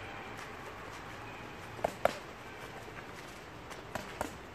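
Boxing gloves striking focus mitts in two quick pairs of punches: two sharp smacks about two seconds in, the second the loudest, and two more near the end.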